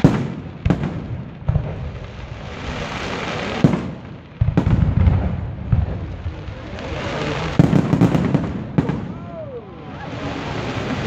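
Aerial firework shells bursting: a series of sharp bangs over a continuous crackle of exploding stars, with the bangs coming thick and fast about halfway through and again near the end.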